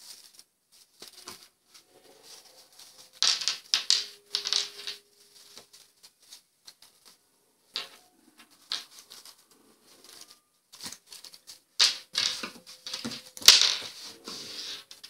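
A cloth purse being turned right side out by hand, its fabric rustling and scraping in irregular bursts with small clicks from the zip, then pressed flat on a wooden table, with a sharp tap near the end.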